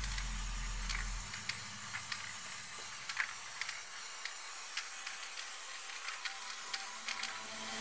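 Aerosol spray paint hissing steadily, with scattered light clicks and taps from the round lids being lifted and set down on the painting.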